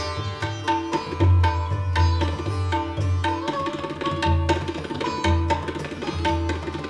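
Sitar and tabla playing Hindustani classical music together: the sitar plucks quick notes, with a note bent in pitch about halfway through, over the tabla's rhythmic strokes and deep bass tones.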